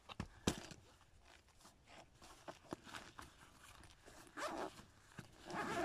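A fabric camera bag being handled and unzipped: two sharp knocks near the start, then light rustling, and the rasp of the zipper being pulled open over the last couple of seconds.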